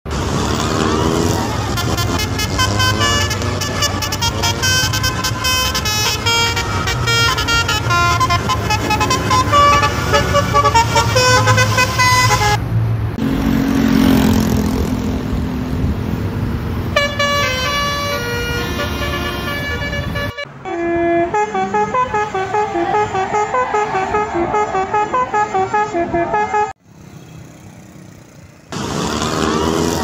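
'Telolet basuri' musical horns on Indonesian buses play fast multi-note tunes, one bus after another, over a steady low bus-engine rumble in the first part. About 13 seconds in, the tune stops for a few seconds of passing-vehicle noise, and there is a short quieter gap near the end.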